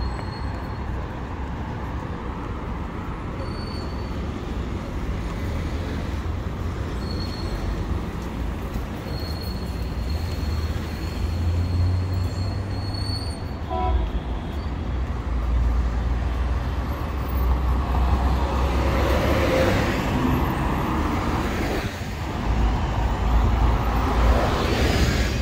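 Road traffic on a multi-lane city street: a steady low rumble of passing cars, swelling as vehicles go by, with a city bus passing close near the end.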